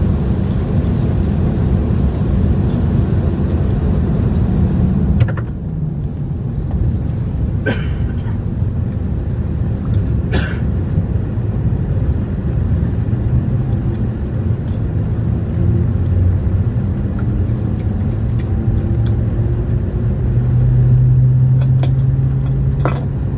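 Cabin noise of an Airbus A321 taxiing: a steady low rumble from the engines and the rolling airframe, with two brief clicks partway through and a low hum that grows louder near the end.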